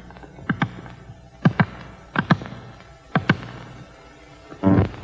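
Rear-sight windage knob of an M1 Garand rifle being turned, giving sharp metallic clicks in close pairs about four times as the sight aperture steps to the right.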